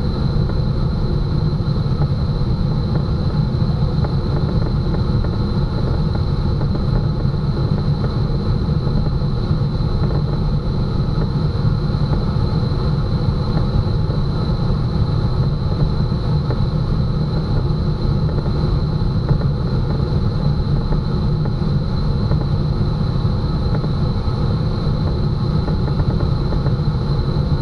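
Steady wind noise of air rushing over the ASW 15 glider's cockpit and canopy under aerotow, with the tow plane's engine droning faintly underneath. A steady high tone runs through it.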